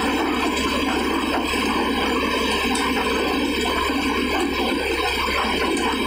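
Tractor-driven paddy thresher running steadily while being fed paddy, with an even, dense mechanical din of the threshing machinery over the low hum of the Sonalika tractor's engine driving it.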